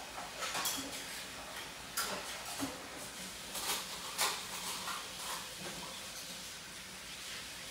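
Greasy ground chuck and chorizo simmering in a skillet: a steady sizzle with a few sharp crackles and pops.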